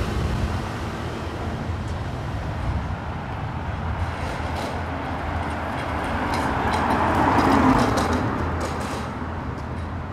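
Paris Metro Line 6 rubber-tyred train crossing the steel viaduct overhead: a steady low sound that swells to its loudest about three-quarters of the way through, with light clicks along the way.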